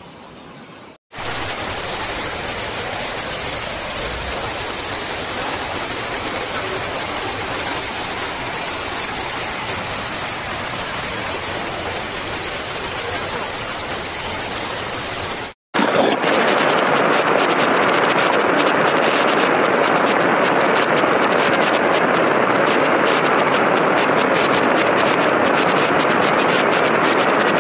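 Floodwater rushing through streets as a steady, loud rush of water noise. It breaks off about a second in and again about halfway through, and the later stretch is louder.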